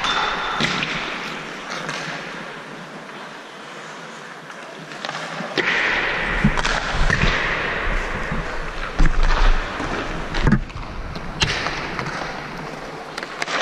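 Ice hockey skate blades scraping and carving on the ice, with sharp clacks of sticks and pucks now and then; the loudest knocks come about nine seconds in.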